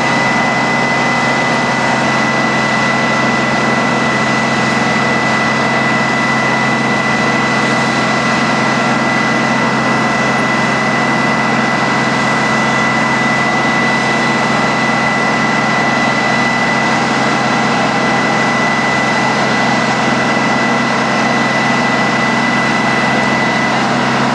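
A steady, unchanging mechanical drone, like an engine or machinery running, with a constant high-pitched whine on top.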